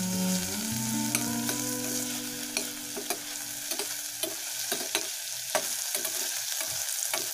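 Chopped tomatoes, onions and garlic sizzling in a stainless steel pot while being stirred, with repeated knocks and scrapes of the spoon against the pot, more frequent in the second half.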